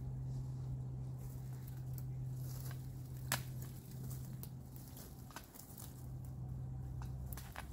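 Dry brush being cut back by hand with a pruning tool: scattered sharp snaps and clicks of twigs and stems breaking, the loudest a little over three seconds in. A steady low hum runs underneath.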